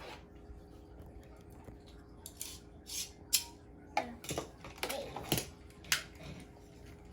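Short, sharp plastic clicks and rattles of Beyblade tops and launchers being handled and fitted together, a handful of separate clicks over a few seconds.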